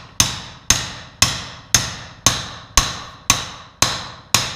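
Hammer blows on a metal drift driving a press-fit wrist pin out of a Dodge 4.7L V8 piston and connecting rod: nine steady strikes about two a second, each with a short metallic ring.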